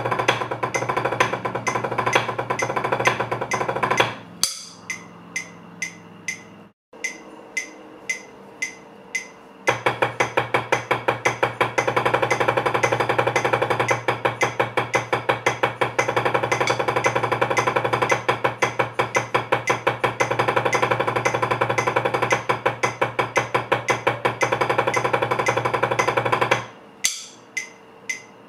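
Wooden drumsticks playing fast, dense strokes on a rubber practice pad in two long passages, the first stopping about four seconds in and the second starting near ten seconds and stopping near the end. In the pause and again at the end only a steady tick about twice a second is heard.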